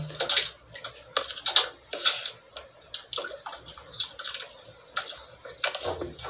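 Seawater lapping and slapping against the hull of a small outrigger boat in irregular short splashes, with a few light clicks.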